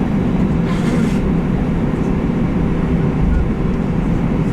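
Steady engine drone and rumble heard inside the cabin of an Airbus A320 airliner, with a brief hiss about a second in.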